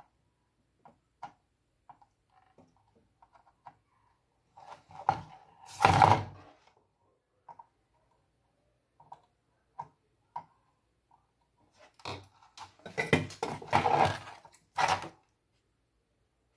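Scattered clicks and knocks of small hard objects being handled, with two louder clusters of quick clicking and clattering, one about five seconds in and a longer one near the end.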